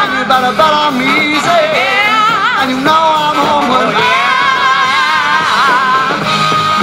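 Rock band playing a song, with a sung melody line over the band.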